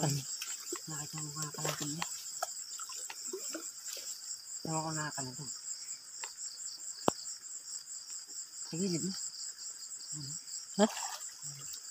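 Crickets chirping in a steady, fast-pulsing high chorus, with a few brief low sounds and a single sharp click partway through.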